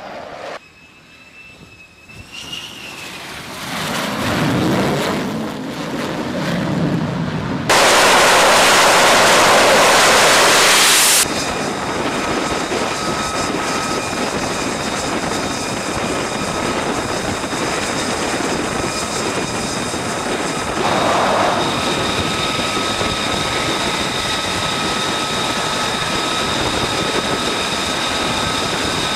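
F-35 fighter jets flying over, the jet noise building after a couple of seconds; then a very loud jet rush that cuts in and cuts off abruptly. After that an F-35C's jet engine runs steadily on a carrier flight deck, a loud rush with a high turbine whine.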